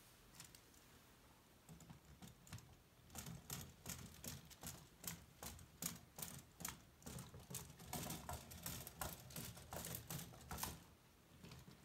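Plastic LEGO walking linkage clicking and tapping as its legs step on a treadmill belt: a quick, irregular run of light clicks, about three a second, over a faint low hum. The clicking starts about three seconds in and stops shortly before the end.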